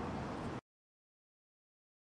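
Steady city street ambience, an even background noise, that cuts off abruptly about half a second in to dead silence.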